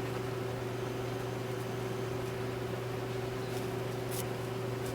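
Steady low electrical or fan-like hum, with a brief faint tick about four seconds in.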